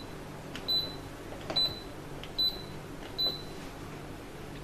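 Whirlpool washing machine control panel beeping as its keys are pressed one after another: four short high beeps, each with a light click, a little under a second apart.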